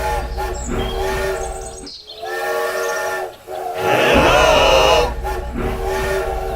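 Repeated blasts of a chord-like, multi-tone whistle over a low rumble, with a louder warbling chirp about four seconds in.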